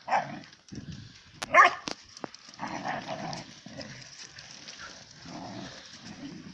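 Saluki puppies barking and yipping in play, several short separate barks, the loudest about a second and a half in.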